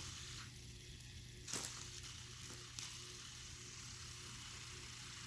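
Quiet, steady hiss with a low hum, and a couple of soft brief rustles of hands handling small objects about one and a half and three seconds in.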